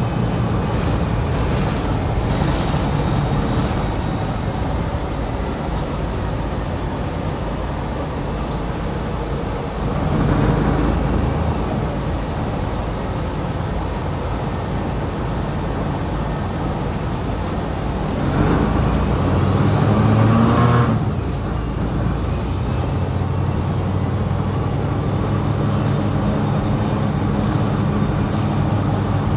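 2020 New Flyer XD60 articulated diesel bus running along the road, its engine a steady low hum with road noise. The engine gets louder and climbs in pitch twice, about ten seconds in and again from about eighteen to twenty-one seconds.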